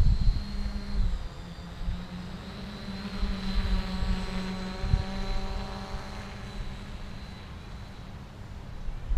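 Electric quadcopter's motors and propellers buzzing in flight with a steady hum; the sound swells as the quad comes closer about three to five seconds in, then fades as it flies off into the distance.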